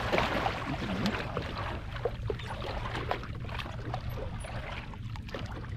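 Water lapping against the hull of a small boat at sea, over a steady low rumble, with scattered faint clicks.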